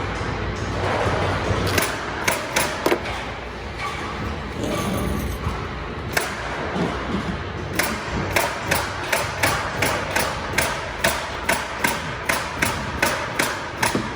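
Nails being driven into wall framing and sheathing: a few sharp strikes about two seconds in, then an even run of about two strikes a second through the second half, over a steady low factory hum.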